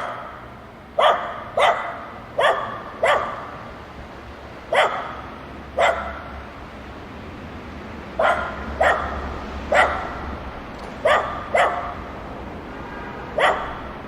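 Dogs barking at play: about a dozen short, sharp barks, often coming in quick pairs, with pauses of a second or two between.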